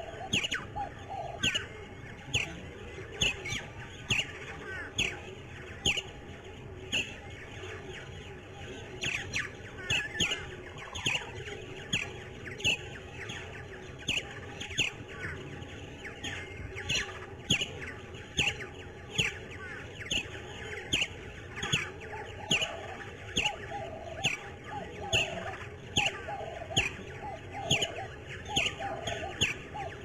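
A bird chirping over and over: short, sharp chirps, each falling quickly in pitch, about one or two a second.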